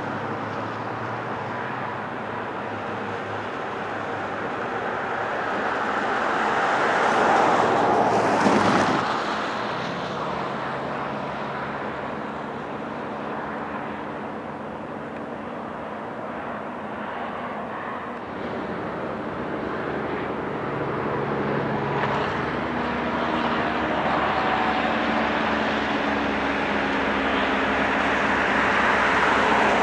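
Road vehicles passing on the highway. One swells to a peak and rushes past close by about eight seconds in, followed by a steadier low engine drone that builds again toward the end.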